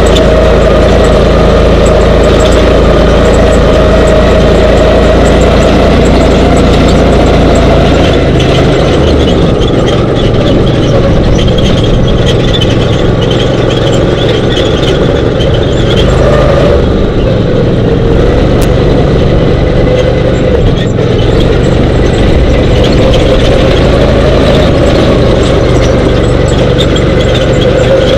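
Dune buggy engine running loud and close while driving across sand. The low rumble eases off from about eight seconds in and picks up again near the end.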